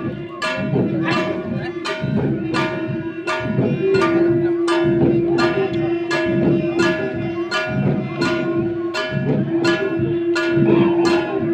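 Garo dama drums of the Wangala dance beating a steady rhythm, about two strokes a second, with a ringing metallic tone sounding over the beat.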